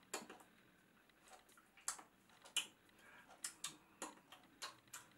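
Sparse, irregular soft clicks and taps, about a dozen over five seconds, from a person signing in British Sign Language as his hands meet and his mouth moves.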